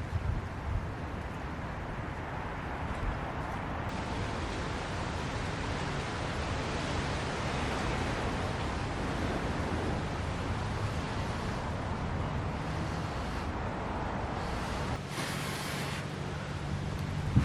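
Steady rushing of wind on the microphone, swelling a little about four seconds in.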